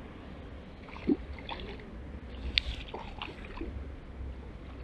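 Low wind rumble on an action-camera microphone, with scattered light clicks from a spinning reel being wound during a lure retrieve. Two sharper knocks, about a second in and just past halfway, are the rod and reel being handled.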